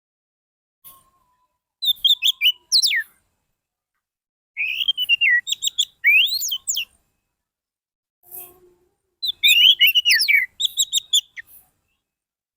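Orange-headed thrush (anis merah) singing: three bursts of rapid, high whistled notes with quick swooping glides up and down, each phrase lasting one to two seconds and separated by short pauses.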